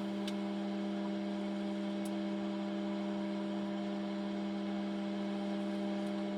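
Microwave oven running: a steady electrical hum with a fixed low drone and a few overtones, holding at an even level.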